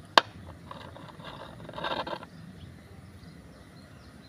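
A single sharp click, then a couple of seconds of soft rustling and scraping, like something being handled.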